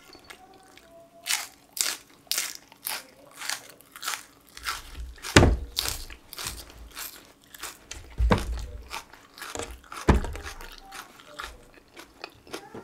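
Crunching and chewing of raw Korean green onion (daepa): crisp crunches several times a second, with three louder deep bites about five, eight and ten seconds in.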